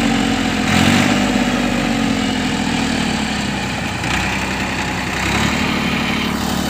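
Massey Ferguson 241 DI tractor's three-cylinder diesel engine under load, its note rising and easing off several times as the tractor, stuck in deep mud, strains to drive out.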